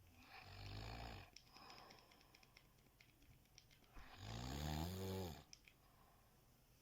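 A sleeping person snoring twice, about three and a half seconds apart. The second snore is louder, with a buzzing pitch that wavers, and faint ticking comes between the two.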